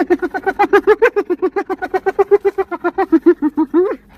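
An animal's rapid, even run of short pitched calls, about eight a second, ending in a rising note just before a brief pause near the end.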